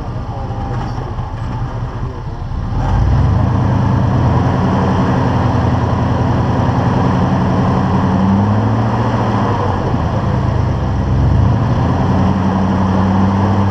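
Off-road vehicle's engine running as it crawls along a rocky dirt trail, getting louder about three seconds in, then rising and falling in pitch a couple of times as the throttle is worked.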